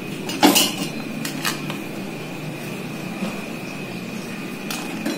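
Pot of lobster soup boiling on the stove with a steady bubbling hiss and a faint steady high tone. A few light clicks and knocks of kitchen utensils or a board against the pot and counter come through, the loudest about half a second in.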